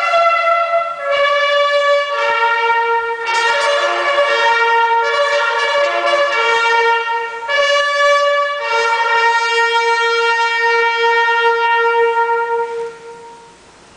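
Bugles played together in a ceremonial bugle call: a run of sustained notes, the last one held long before it fades away about a second before the end.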